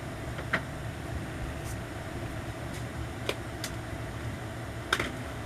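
A few short, sharp clicks of plastic phone cases being handled and placed on a wall display, over a steady low background hum.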